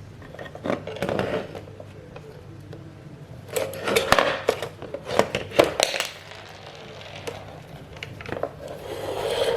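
Plastic clicks, knocks and short rattling bursts as a toy chainsaw is handled, in two bouts: about a second in, and again from about three and a half to six seconds in.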